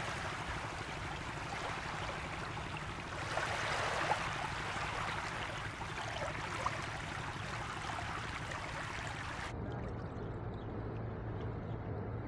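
Small waves lapping and splashing at the water's edge, over a steady low hum. About nine and a half seconds in the splashing gives way abruptly to a duller, softer wash, and the hum stands out more.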